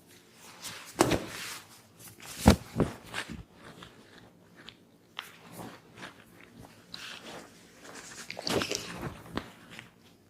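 A barber's hands working a client's head and neck, rubbing on skin with several sharp cracks and pops. The loudest crack comes about two and a half seconds in, and another cluster comes near the end.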